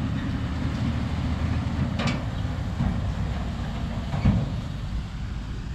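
Heavy diesel engine running steadily in a low rumble, with a couple of short knocks about two and four seconds in.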